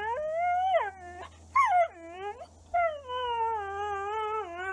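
A dog howling in drawn-out, wavering notes that slide up and down in pitch. There are three calls, and the last is the longest at about two seconds.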